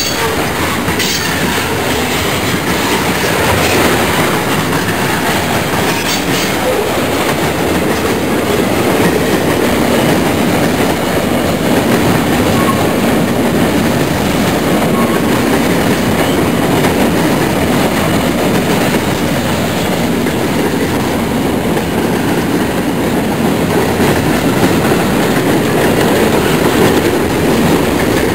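Freight cars (tank cars, covered hoppers and boxcars) rolling past close by: a steady, loud noise of steel wheels running on the rails.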